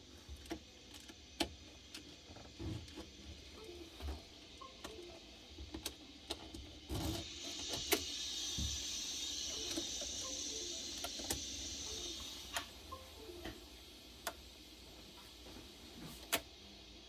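Model railway turntable's small electric drive motor running for about five seconds in the middle, a steady whir, with scattered light clicks and ticks before and after.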